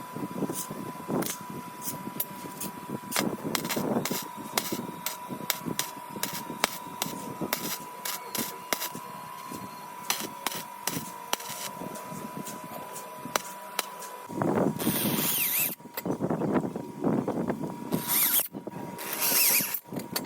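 Workshop handling of tools and parts: many short clicks and knocks, then louder bursts of noise from about fourteen seconds in that fit a power tool running in short spells.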